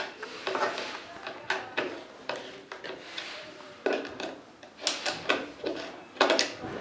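Hand screwdriver driving a screw into a particleboard cabinet panel: an irregular run of short scraping clicks and small knocks as the driver is turned and the panel shifts, loudest about five seconds in and near the end.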